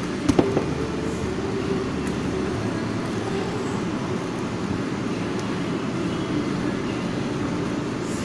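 Steady low background hum, with a couple of sharp clicks about a third of a second in.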